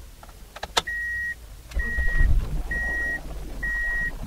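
Four evenly spaced electronic beeps, about one a second, each held for about half a second. A few clicks come just before them. A low engine rumble joins about one and a half seconds in: the 2003 Toyota Matrix's engine, which is running rough from a misfire.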